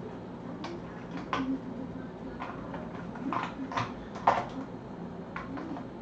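Scattered, irregular small clicks and light taps, about a dozen over a few seconds, over a faint steady low hum.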